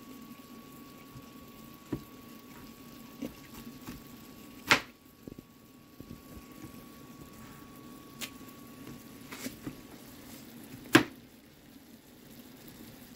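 Knife cutting through zucchini and knocking on a plastic cutting board: a handful of sharp knocks a second or more apart, the loudest about five seconds in and near the end. Under them a soft steady sizzle from vegetables in a cast iron skillet.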